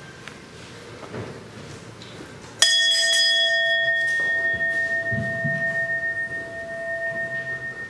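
Small brass hand bell rung once about two and a half seconds in, then left to ring on: a clear steady tone with a higher overtone, its shrill upper partials dying away within a second or so while the main tone slowly fades with a wavering pulse.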